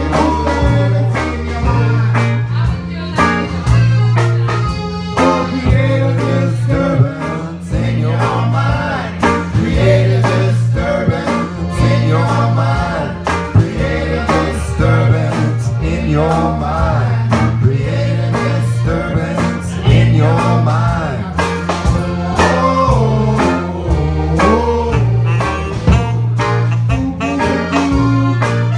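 A live band playing an upbeat blues-country number, led by electric guitar over steady, repeating bass notes.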